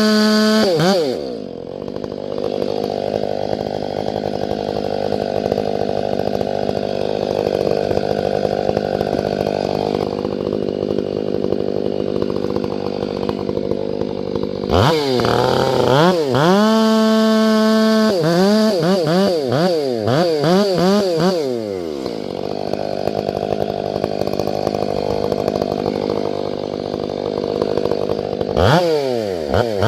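Large gas chainsaw at full throttle bucking firewood logs: the engine pulls down under load through two long cuts, revving up high and free between them and again near the end.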